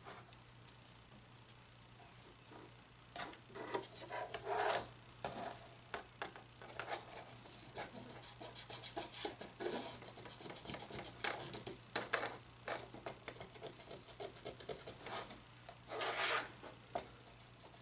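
Irregular scrubbing and rubbing strokes on a cordless phone's casing as grime and dust are cleaned off, starting about three seconds in.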